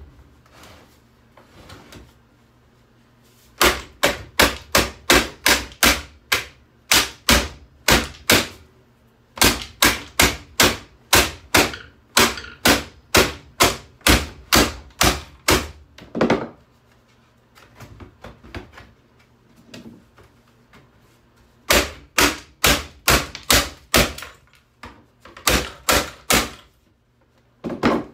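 Hammer blows on a boombox's casing: runs of sharp, rapid strikes, about two to three a second, broken by short pauses.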